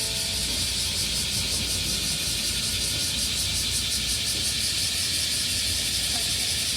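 Steady, high-pitched buzzing of a cicada chorus, with a fast pulsing texture, over a low rumble.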